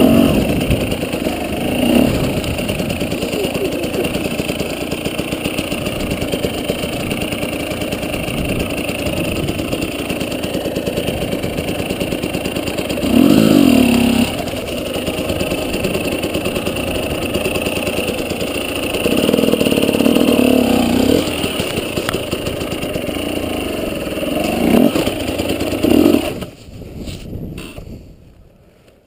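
Husqvarna dirt bike engine running at low speed through rough ground, with the throttle opened up in several short bursts. Near the end the engine sound drops away sharply and goes nearly quiet.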